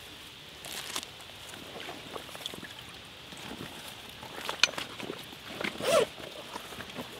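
Rustling and handling of a wet fish sling with small splashes of water as a carp is let back into the lake, with two louder splashes or knocks about four and a half and six seconds in.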